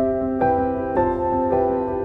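Background music: a slow, sustained melody with a new note about every half second.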